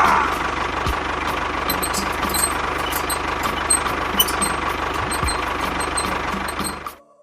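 A small motor running steadily with an even, rapid low pulse, cutting off abruptly near the end.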